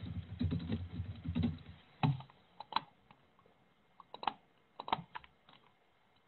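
Typing on a laptop keyboard, a quick run of keystrokes for about two seconds, then a few separate clicks, singly and in pairs, from a computer mouse.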